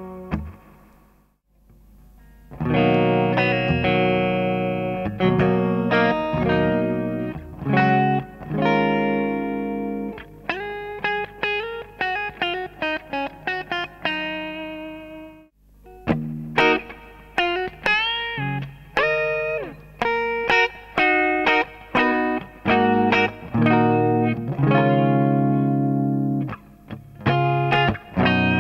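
Electric guitar played through a Prismatic Reverb pedal, a clone of the Deadastronaut Flying Saucer Reverb: chords and single picked notes with some string bends, each ringing on in the reverb. The playing dies away and stops briefly about a second in and again about halfway through, then starts again.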